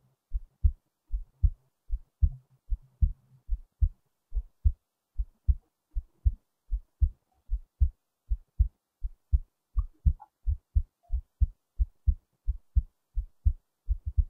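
A human heartbeat recorded close up: a steady, regular run of low thumps, a few a second.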